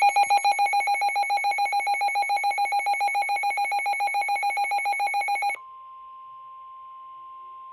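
Weather radio alert tones: a loud, buzzy electronic tone pulsing about eight times a second for about five and a half seconds. It then cuts to a quieter, steady single tone, the weather radio warning alarm tone that comes before a warning message.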